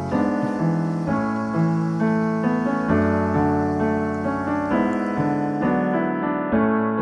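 Background piano music: a gentle melody of struck notes that ring and fade, about one or two new notes a second.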